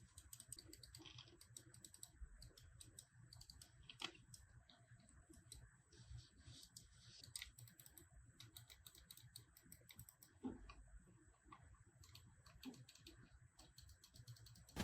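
Faint, irregular clicks and taps from hands handling a gaming mouse and its packaging during unboxing, with one sharper click about four seconds in.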